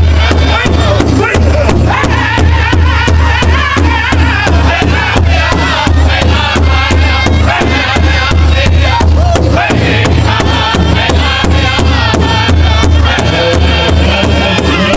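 Powwow drum group singing together in the Northern style, several men's voices in unison over a large shared powwow drum struck with beaters in a fast, even beat.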